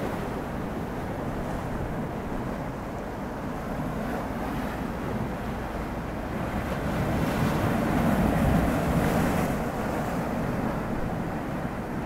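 Sea waves breaking and washing over rocks: a continuous surf noise that swells to its loudest about eight seconds in as a wave crashes, then eases.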